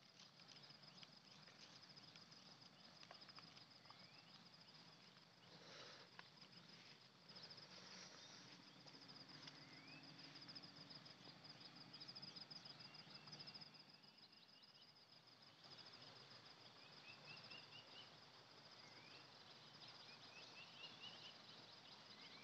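Near silence, with faint outdoor ambience: an insect, cricket-like, trilling steadily in a rapid high-pitched pulse, and a few quick rising bird chirps in the second half.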